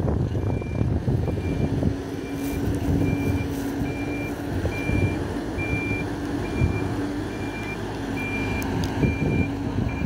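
Hidromek 102B backhoe loader's reversing alarm beeping steadily, a little faster than once a second, over its diesel engine running as the machine backs up with a loaded front bucket.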